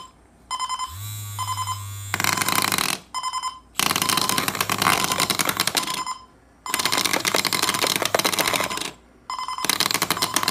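Alarm clock sounding its loud electronic alarm, a harsh rapid ringing in bursts of one to three seconds with short gaps between them. Near the start the wired bed shaker's vibration motor adds a low hum for about a second.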